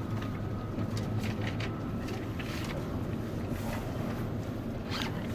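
Tour coach running along a road, heard from inside the cabin: a steady low drone of engine and tyre noise with a few faint ticks.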